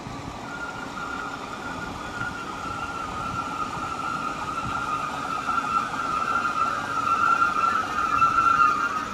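Class 315 electric multiple unit drawing into the platform: a steady high whine over the rumble of the train, growing louder as it nears and dropping slightly in pitch near the end as it slows.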